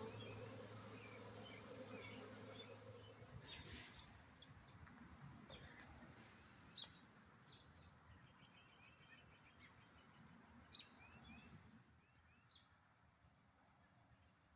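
Honeybees buzzing around a hive box, a steady hum that stops about three seconds in. After that, faint chirps and short calls of small birds.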